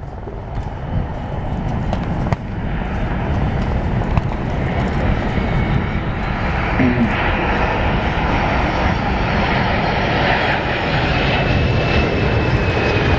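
Boeing C-17 Globemaster III's four turbofan engines running as the transport flies low overhead, growing louder over the first few seconds and then holding steady, with a faint high whine coming in near the end.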